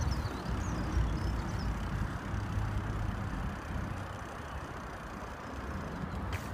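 Wind buffeting the microphone as the camera moves along the path: a fluctuating low rumble over a steady hiss. A small bird chirps a few times in the first couple of seconds.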